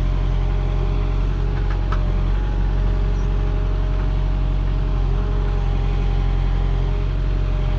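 Diesel engine of a JCB 3CX Compact backhoe running steadily, with a faint steady whine above the engine note.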